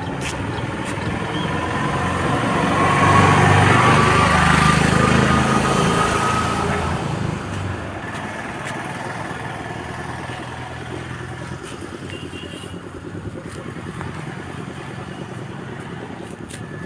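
A motor vehicle passes close by. Its engine sound swells over the first few seconds with a slowly rising pitch, then fades into steady road-traffic noise.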